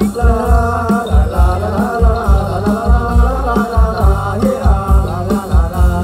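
Live likay band music: a wavering melody over a steady beat of drums.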